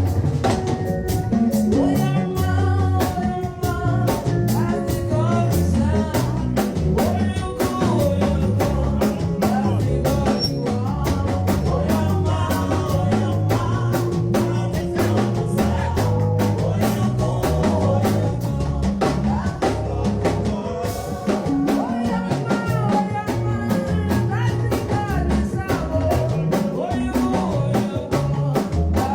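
Live band playing a song at a rehearsal sound check: a drum kit keeps a steady beat under bass and other pitched instruments.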